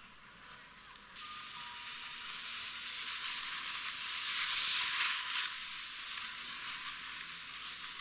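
Scraping hiss of a slide over crusty, granular snow. It starts suddenly about a second in, swells to its loudest around the middle, then eases.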